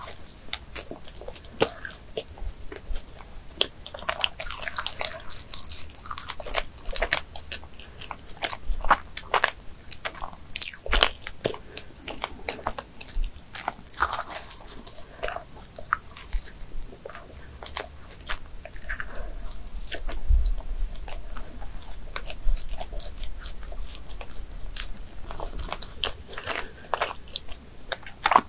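A person biting into and chewing a Krispy Kreme doughnut close to the microphone: irregular wet mouth clicks and chewing sounds.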